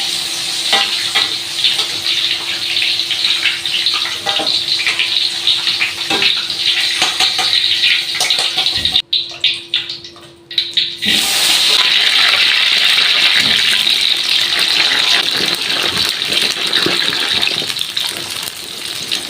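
Hot cooking oil sizzling and crackling steadily in a frying pan, with a short drop-out about nine seconds in before the sizzle comes back a little louder. A faint steady hum sits under it through the first half.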